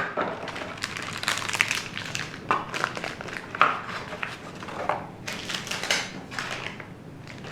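Packaging of a new motherboard being handled: irregular rustling and crinkling with a few sharp clicks.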